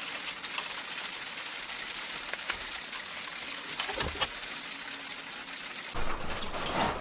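Steady rain drumming on the workshop roof, an even hiss. About six seconds in the sound changes abruptly, with a few light knocks.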